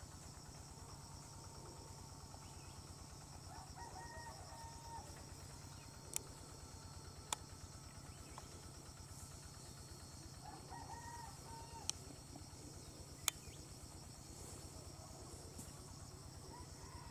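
A rooster crowing faintly twice over a steady high insect hum, with four sharp clicks scattered through the middle.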